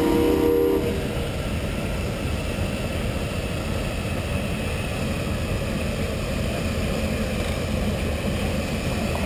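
Steam traction engine's whistle sounding several tones at once, cutting off about a second in; then a steady low rumble as the engine pulls the plows.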